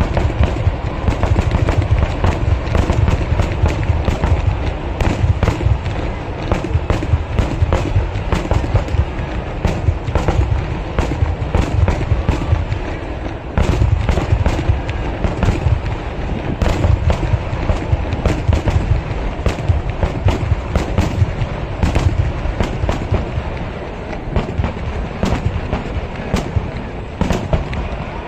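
Kerala temple-festival fireworks (vedikettu) going off in a dense, unbroken barrage: many sharp cracks and booming explosions every second, overlapping one another. There is a brief dip about halfway through.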